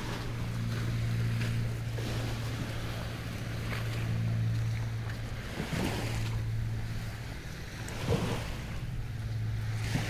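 Motorboat engine running at a steady low hum that swells and eases a little, with wind noise on the microphone. A couple of short knocks fall in the second half.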